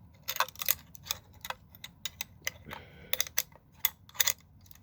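Irregular sharp clicks and light clinks from handling a vintage ARO No. 240 chain burglar alarm and its chain, with no horn sounding.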